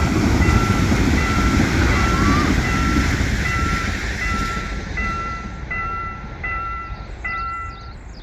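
Level-crossing warning bell ringing in even, repeated dings about every three-quarters of a second while a passing train rumbles. The train's noise fades over the last few seconds, and the bell stops near the end.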